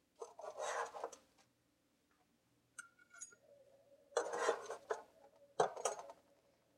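Spatula scraping under cookies on a parchment-lined baking sheet, the paper rustling, in three short bursts with a few faint clinks between them.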